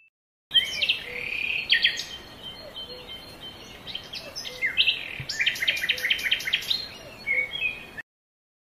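Songbirds chirping and singing, with many quick repeated and trilled notes; the sound starts suddenly and cuts off suddenly near the end.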